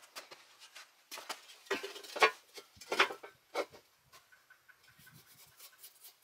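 Steel plow parts, a share and a moldboard cut from an old gas cylinder, being handled and fitted together on a wooden board: a handful of short scrapes and knocks, the loudest about two and three seconds in.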